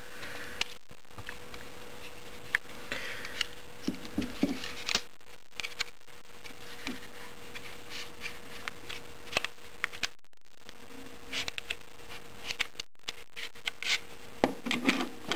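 Glock 19 pistol being field-stripped by hand: scattered clicks, rattles and scrapes as the magazine, slide and barrel are worked loose and taken apart.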